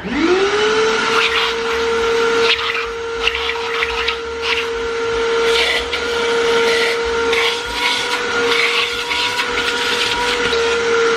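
A vacuum's motor spins up with a rising whine, then runs steadily as its hose sucks leaves and dust out of the cylinder bores of a bare cast-iron engine block. Scattered short crackles and taps of debris run through the suction.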